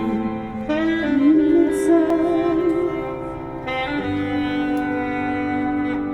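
Background music: slow, sustained melodic instrumental with held notes wavering in vibrato and chords changing every few seconds.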